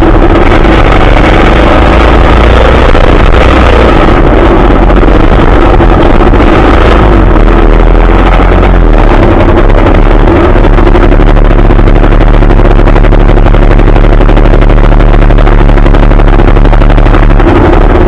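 Trail motorcycle engine running under way, heard from a camera mounted on the bike itself, steady and very loud, close to overloading the microphone.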